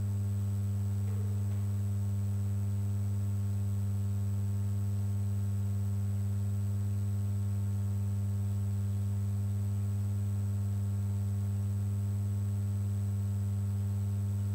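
Steady electrical mains hum on the recording: a constant low buzz that never changes, with a faint high whine above it.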